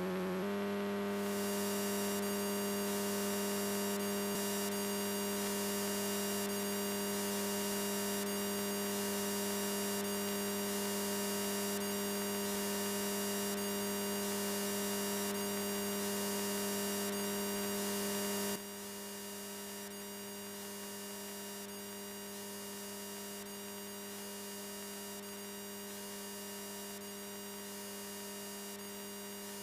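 Steady electrical hum with a high whine over it on the aircraft's radio and intercom audio. It drops in level about two-thirds of the way through.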